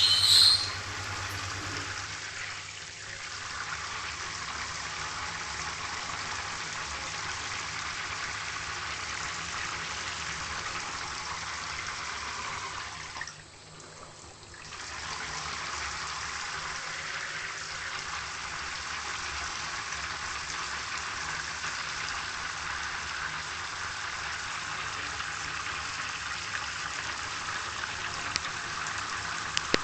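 Steady rushing hiss of running water, dropping away briefly about halfway through. A short, loud, sharp sound comes at the very start.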